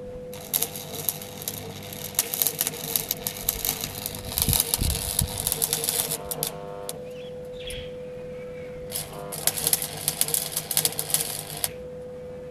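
Electric arc welder crackling and sputtering as a bead is laid on steel, in two runs: one of about six seconds, then after a short pause another of about three seconds, over a steady hum.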